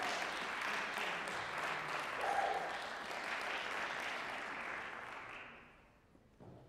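Audience applauding, fading away about five to six seconds in, followed by a single soft knock near the end.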